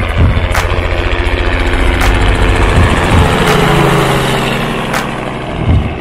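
Light helicopter flying past: fast, steady rotor-blade chop with engine noise. A tone in the sound falls in pitch a few seconds in as the helicopter passes.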